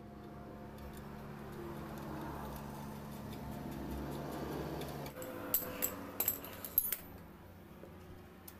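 Several light metallic clicks and clinks in quick succession, a little over halfway through, as the metal parts of a motorcycle's rear drum brake linkage (brake arm, rod and adjuster nut) are handled. Before them a steady low hum stops about five seconds in.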